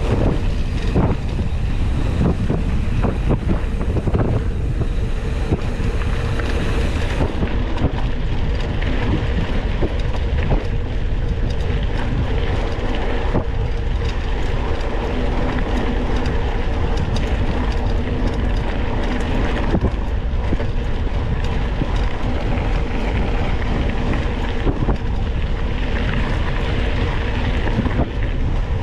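Wind rushing over the microphone of a mountain bike's onboard camera, with the tyres rolling over a dirt trail and the bike rattling with many short knocks over rough ground.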